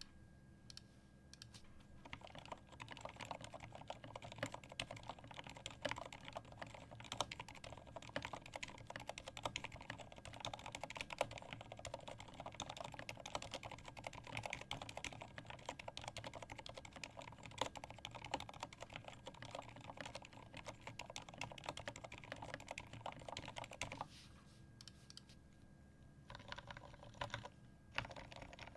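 Fast, continuous typing on a custom mechanical keyboard: a Velocifire KK75 kit with an aluminium plate, lubed ZealPC Roselios switches, greased Durock V2 stabilisers and pudding keycaps. It starts about two seconds in, stops for a couple of seconds near the end, then picks up again.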